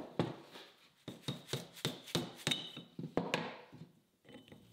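A lathe's compound-slide lead screw and brass nut being handled and worked through the slide body: a quick run of short metal scrapes and clicks, some leaving a faint ring, with a brief lull near the end.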